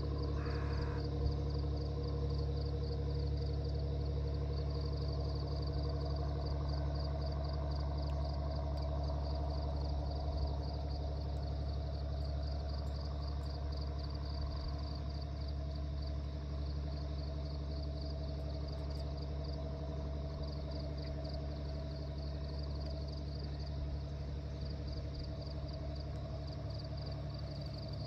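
A steady low hum with a few held tones, under a high-pitched chirring that pulses evenly several times a second.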